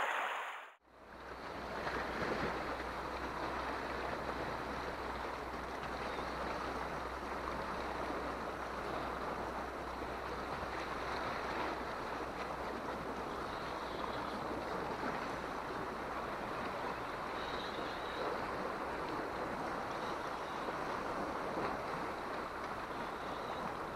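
Sea surf washing steadily against shore rocks, with a low rumble of wind on the microphone; it fades in about a second in.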